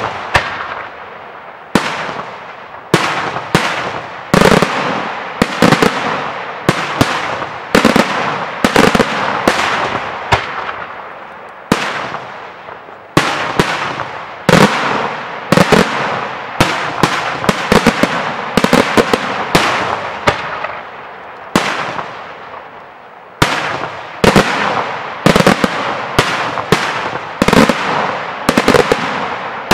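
Daytime aerial fireworks shells bursting in the sky: dozens of sharp bangs at irregular intervals, about one or two a second and sometimes several close together, each trailing off in an echo.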